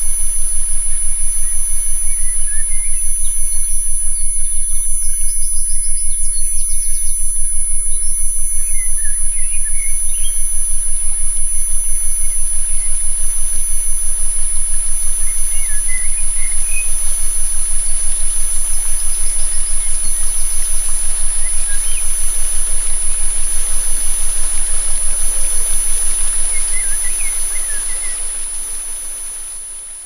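Synthesized steady sine tones at several fixed pitches, rapidly pulsing in loudness, layered over a forest ambience with a few faint bird chirps; the whole mix fades out over the last few seconds.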